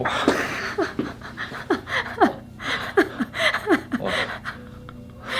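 A person's breathy vocal reaction to a chiropractic neck adjustment: a string of short cries, each falling in pitch, about two a second, half laughing and half panting.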